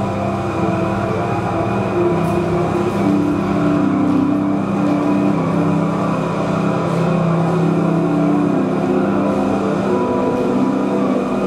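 Analog synthesizer ambient drone played live: dense low held tones that move to new pitches every second or two, over a steady hiss.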